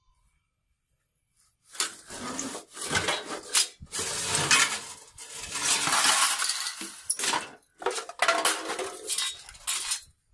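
Rusty scrap metal clanking, clinking and scraping as pieces in a junk pile are shifted by hand. It starts about two seconds in and comes in quick bouts with short breaks.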